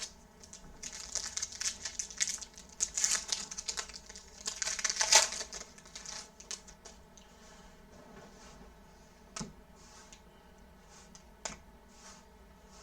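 Wrapper of a trading card pack crinkling and tearing as it is opened, loudest about five seconds in. After that, a few soft clicks as the cards are handled.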